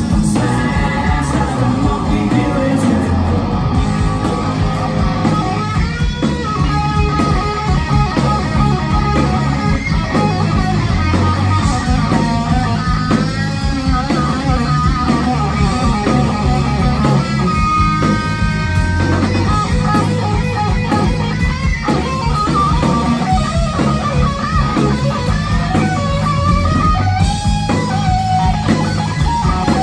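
Live rock band playing: an electric guitar lead with bent, wavering notes over a second guitar, bass guitar and drums.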